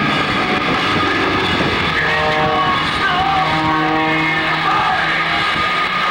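An aerobatic propeller plane's engine running steadily as it flies a low pass, mixed with rock music playing over the airshow loudspeakers.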